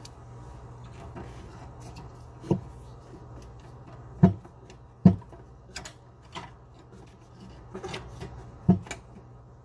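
Scattered clicks and knocks of sink drain assembly parts being handled and fitted together, about seven in all, the sharpest a little over 4 and 5 seconds in.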